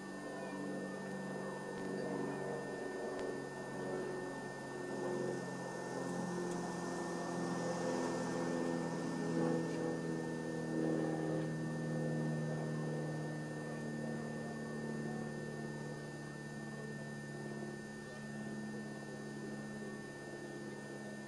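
A steady low hum made of several slowly drifting tones, with a thin, constant high whine above it.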